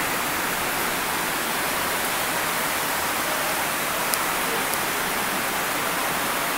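Heavy rain heard from inside a room: a loud, steady hiss, too loud to hold an interview over.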